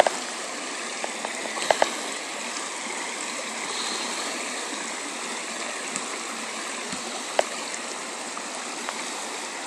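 Steady rushing of floodwater, with a few short sharp clicks of handling close to the microphone.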